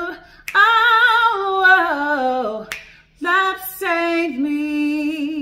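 A woman singing unaccompanied in long held notes with vibrato. The first note slides down in pitch. After a quick breath, a second long note is held and begins to fade at the song's end.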